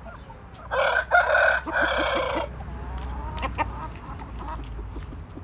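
Seven-month-old Plymouth Rock rooster crowing once, a short crow of under two seconds in about three parts starting about a second in, followed by softer clucking calls.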